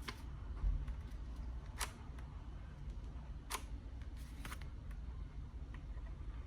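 A few isolated clicks from a mechanical keyboard's keys being handled, each a couple of seconds apart, the two clearest near the start and the middle.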